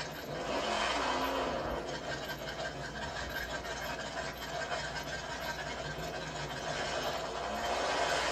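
Ford Mustang Mach 1 drag car's V8 running at idle as the car creeps forward out of its burnout smoke, growing louder twice: about half a second in and again near the end.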